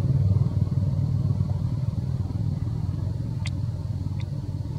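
A motor vehicle engine running with a low, steady hum that fades steadily, as if moving away. Two brief high chirps come about three and a half and four seconds in.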